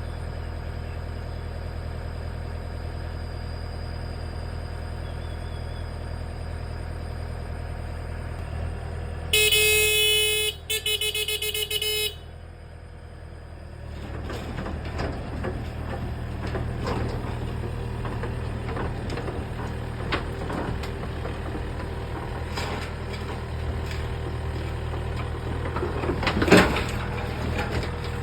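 Excavator's diesel engine running steadily. About nine seconds in, a loud horn sounds two blasts over roughly three seconds. From about fourteen seconds on there is clattering and knocking of the machine at work, with a sharp knock near the end.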